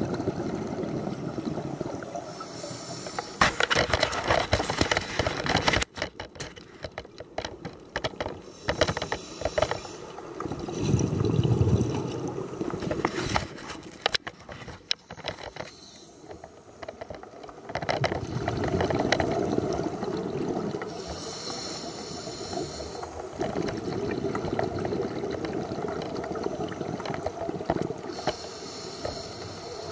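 A scuba diver breathing through a regulator underwater: a hissing inhale every several seconds, and between them the low gurgling rumble of exhaled bubbles. Scattered clicks come early on the track.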